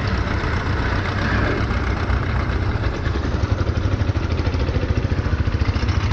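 Kia 35 diesel engine running and settling into an even, rapidly pulsing idle about three seconds in. It has an abnormal noise that the mechanic suspects comes from a leaking, burnt valve.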